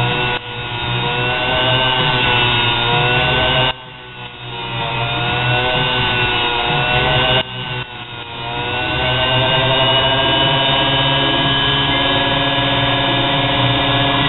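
Sewing machine motor driving a small diamond grinding wheel, running with a high-pitched whine while the tip of a steel welding rod is ground on the wheel. The sound breaks off sharply about 4 seconds and 7.5 seconds in, and its pitch rises again as the motor comes back up to speed.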